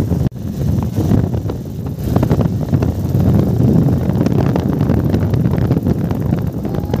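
Wind buffeting the microphone, mixed with the rumble of a vehicle travelling at speed on the highway, heard from the open back of the truck. It breaks off for an instant near the start, then runs on unchanged.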